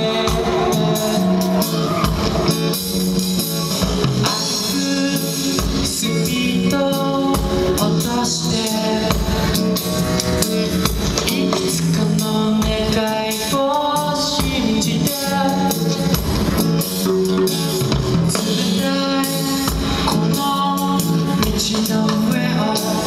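Live band playing through an outdoor stage PA, heard from the audience: drum kit beat, electric guitar, and a singing voice.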